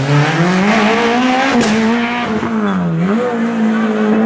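Rally car engine revving hard, its pitch rising and falling, dropping about three seconds in and then held high and steady.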